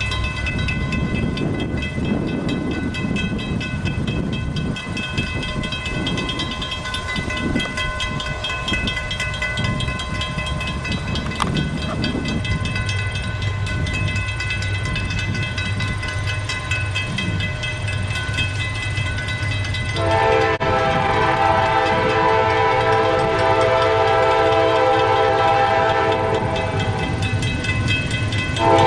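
Diesel locomotive rumbling as it approaches, then about two-thirds of the way in its air horn sounds one long blast of about eight seconds, breaks off briefly, and sounds again at the end, blowing for the grade crossing.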